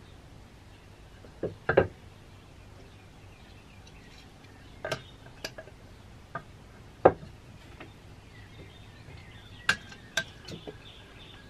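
Wooden mallet handles and dowels being picked up and set down on a lathe bed and workbench: scattered sharp clacks of wood on wood and metal, about nine in all, the loudest about seven seconds in.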